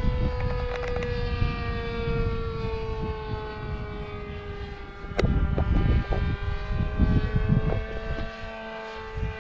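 Radio-controlled model airplane's motor running with a steady high whine that slowly drops in pitch, over a gusty rumble of wind on the microphone.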